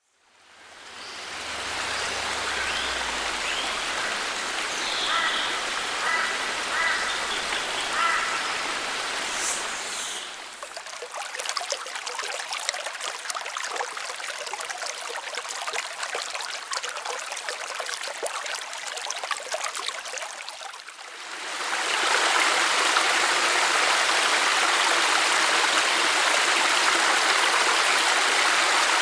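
Rainforest creek water running, fading in at the start. About ten seconds in it switches to a finer, crackling trickle, and past the twenty-second mark to a louder, steady rush of falling water. A few short chirps sound in the first part.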